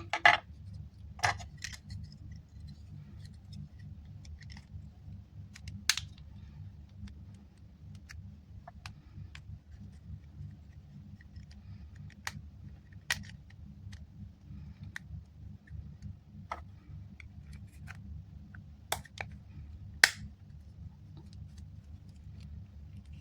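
Scattered small clicks and taps of tiny parts and tools being handled during an earbud repair, over a steady low hum.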